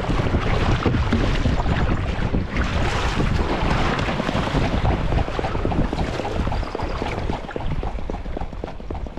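Wind buffeting the camera microphone, with water splashing as a swan beats its wings and runs across the pond surface to take off; a rapid patter of short slaps builds in the second half.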